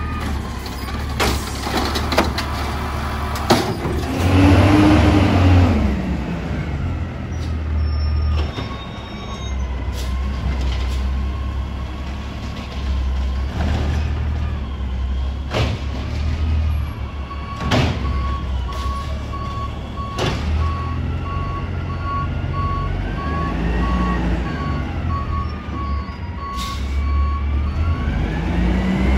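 Autocar garbage truck with an Amrep body at work: the engine runs steadily and revs up and back down a few times. Sharp knocks and clanks come at intervals, and a steady beeping alarm sounds through much of the second half.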